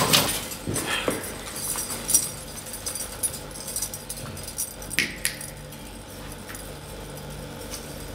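A few scattered knocks and light clinks of actors moving and handling props on a stage, over a low steady hum.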